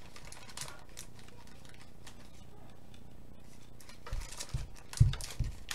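Trading-card packs being handled and set down: faint rustling, then louder rustling with several dull thumps near the end, the loudest about five seconds in.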